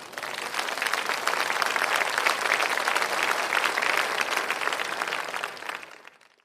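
A crowd applauding, many hands clapping densely together. It swells in over the first second and fades out near the end.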